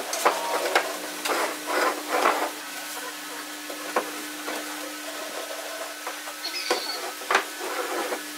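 Wooden folding chair being unfolded by hand: the slatted frame rattles and scrapes as it swings open, with a sharp wooden click about four seconds in and two knocks near the end as the legs and seat settle. A steady low hum lies underneath.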